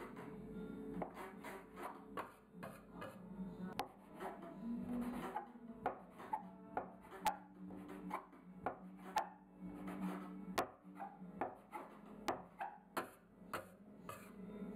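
Metal bench scraper chopping strips of dough into small pieces, its blade knocking on a wooden table about twice a second, over quiet background music.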